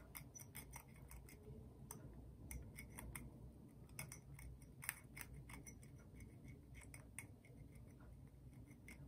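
Faint, irregular scratching and ticking of a pointed metal tool scraping rust off the negative terminal of a 14500 lithium-ion cell.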